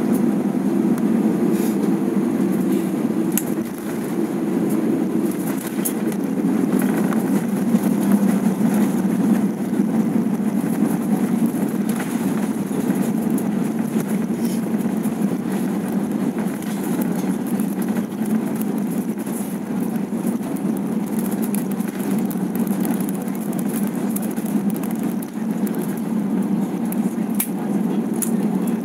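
Airbus A320 passenger-cabin noise during landing: a steady low rumble from the engines, airflow and undercarriage, with scattered faint clicks and rattles from the cabin fittings.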